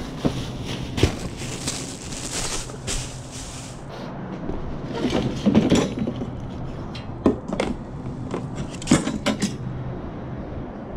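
Household items being rummaged through and handled: rustling with scattered knocks and clunks, the loudest about nine seconds in.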